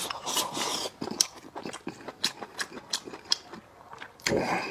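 A person chewing food close to the microphone, with wet mouth clicks and lip-smacks coming irregularly several times a second.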